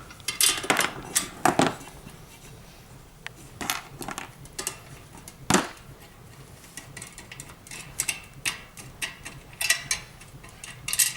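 Scattered metal clicks and knocks from a satellite dish's steel mounting hardware being handled and taken apart: the wall bracket coming off the dish arm, its bolts and nuts clinking.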